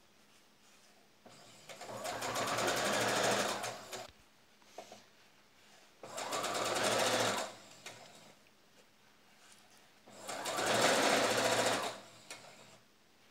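Electric sewing machine stitching white piping onto cotton fabric in three short runs of a couple of seconds each, with quiet pauses between them.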